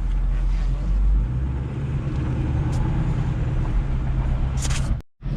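Vehicle engine and road noise heard inside the cab while driving: a steady low hum whose pitch shifts about a second in. It cuts off abruptly near the end.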